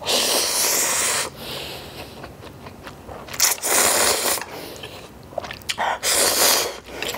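A person slurping ramyeon noodles off chopsticks: three long, loud slurps, about three seconds apart, with quieter chewing between them.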